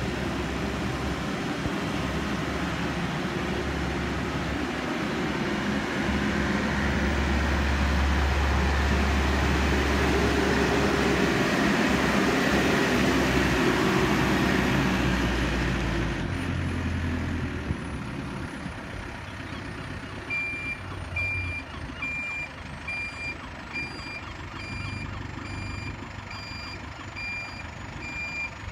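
Hydrema 912E dumper's diesel engine running as the machine moves about, louder through the middle and quieter in the last third. From about two-thirds of the way through, its reversing alarm beeps steadily at one pitch, roughly once a second.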